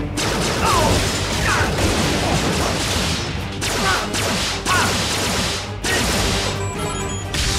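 Animated robot fight sound effects: crashes and mechanical clanking with whooshes and short whirring glides, starting abruptly, over dramatic score music. The din breaks off briefly twice.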